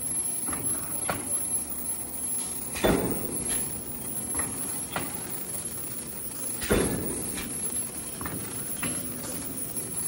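AQ-700 non-woven dust bag making machine running: a steady mechanical hum with a heavy clunk twice, about four seconds apart, as the machine cycles, and lighter clicks in between.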